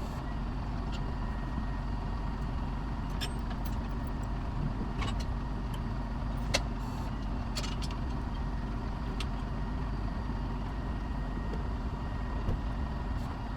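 A vehicle engine idling steadily, with a few light metallic clicks and knocks scattered through it.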